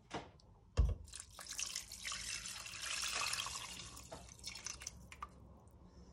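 Beef stock poured from a glass jug into a large pot of beef and tomato stew: a splashing pour of about three and a half seconds that tails off into a few drips and clicks. A sharp knock comes just before the pour begins.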